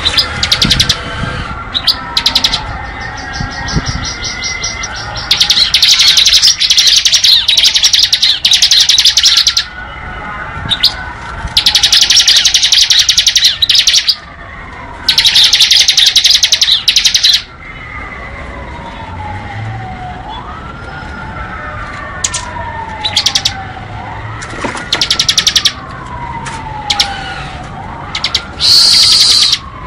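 Bar-winged prinia (ciblek) singing its 'ngebren' song: long, very rapid, high-pitched trills lasting several seconds, alternating with short bursts of quick notes. A lower falling whistle repeats every couple of seconds underneath.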